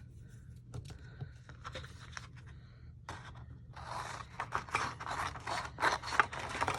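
Cardstock being cut by hand: a few light clicks and handling sounds, then from about three seconds in a quick run of rasping cutting strokes.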